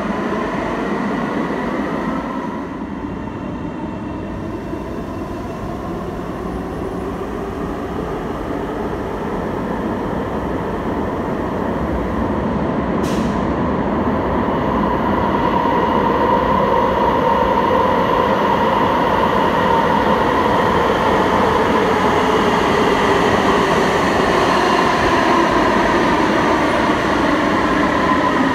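Alstom Citadis Spirit light-rail train in an underground station. Its rumble and electric motor whine build steadily as it approaches through the tunnel, then stay loud as it pulls in alongside the platform. A single brief sharp click is heard about halfway through.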